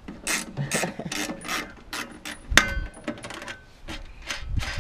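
Ratchet wrench clicking through a run of strokes, about two to three a second, as a bolt is turned on an aluminium diffuser bracket, with one louder ringing metal click about two and a half seconds in.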